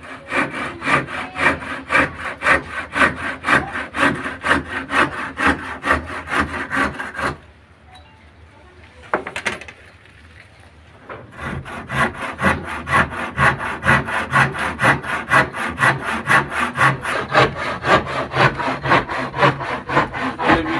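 Handsaw cutting through a wooden plank with quick, even back-and-forth strokes. The sawing stops for about four seconds a little past the middle, then starts again.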